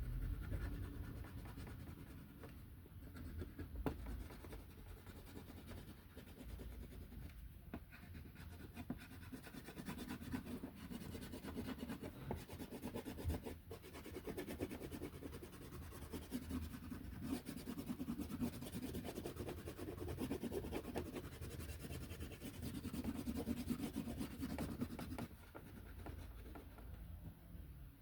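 A coloring tool rubbing back and forth on paper, shading in an area: a continuous scratchy stroking that grows louder and softer as the strokes go on.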